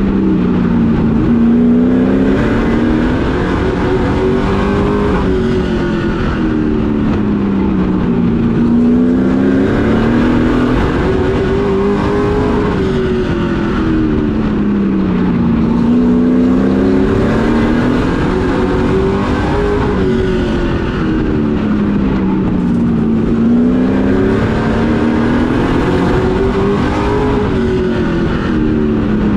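Pro Truck race engine heard from inside the cab at race pace. Its pitch rises and falls smoothly about every seven seconds, climbing down each straightaway and dropping off into each turn, lap after lap of a short oval.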